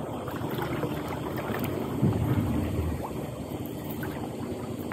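Wind buffeting the microphone over the bay's outdoor water ambience, a steady rough rumble with no distinct event.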